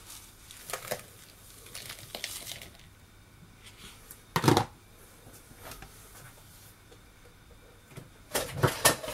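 Caster sugar pouring from a plastic bowl onto butter in a mixing bowl, a soft hiss lasting about two and a half seconds. About four and a half seconds in there is one sharp knock, and near the end a few more knocks of kitchenware being handled.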